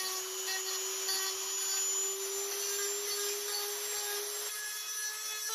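Dremel rotary tool with a sanding drum running with a steady whine while it grinds along the edge of a kydex holster, smoothing the rough cut edges. The motor pitch steps up a little about four and a half seconds in.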